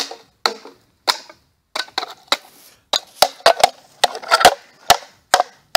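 Empty tin cans being crushed flat with a hammer: a string of sharp, irregular bangs, coming faster in the second half.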